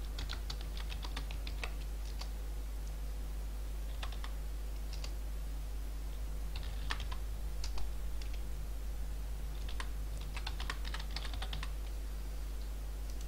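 Typing on a computer keyboard: quick runs of keystrokes broken by short pauses, with the densest runs at the start and again about ten seconds in. A steady low hum sits underneath.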